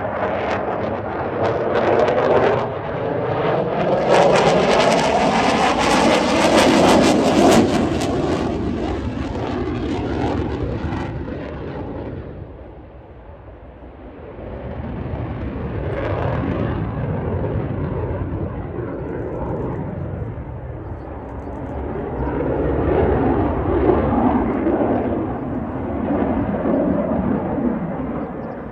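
Saab JAS 39 Gripen single-engine fighter jet's engine noise overhead as the jet manoeuvres. It is loudest in the first third, with sweeping rising and falling tones as it passes. It fades to its quietest about halfway through, then swells again twice.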